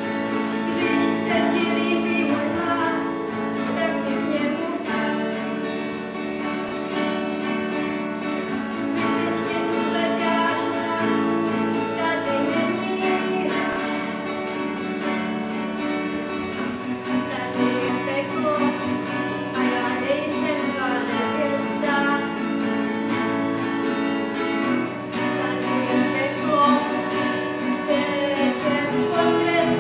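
Acoustic guitar music played on, with a voice singing along.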